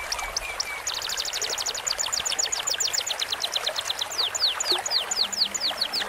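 Recorded bird song for training caged birds: a rapid run of high, downward-sweeping chips, about ten a second, slowing after about four seconds to longer falling whistles about four a second. The song plays over a steady rush of running water.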